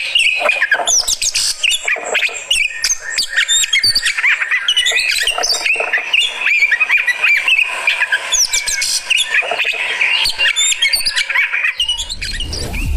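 Oriental magpie-robin (kacer) singing continuously in fast, varied phrases of whistles, chirps and harsher squawking notes. Near the end a low rumbling swell comes in under it.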